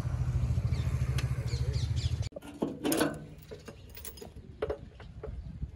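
An engine idles with a steady low throb, cut off abruptly a little over two seconds in. Then a key on a metal key ring jingles and clicks in a hand.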